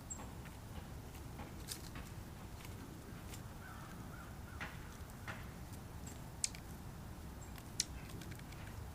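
Faint outdoor ambience with a steady low rumble. Scattered sharp taps and clicks come from birds and squirrels feeding at a log, with a faint crow call about halfway through.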